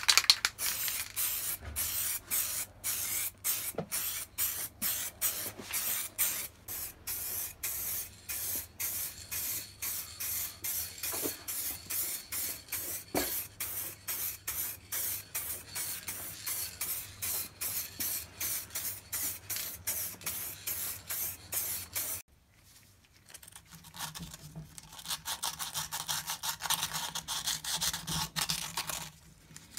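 Aerosol spray paint hissing in rapid, regularly broken bursts, stopping about 22 seconds in. After a short pause, a gloved hand rubs inside the copper-wound stator of an electric motor, over a low hum.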